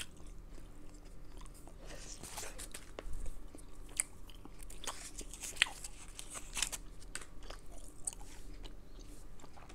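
Close-miked chewing of a mouthful of soft sugar-free Extra Classic Bubble gum sticks, with wet mouth clicks and smacks scattered irregularly through it.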